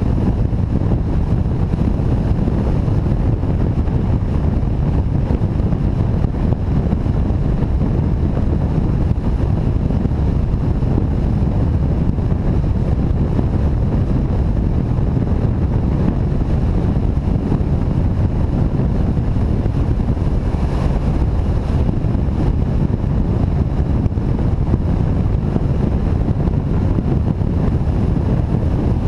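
Wind rushing over a GoPro Hero3's microphone, mixed with engine and road noise, as a cruiser-style motorcycle rides along at a steady speed: a constant low rumble that never changes pace.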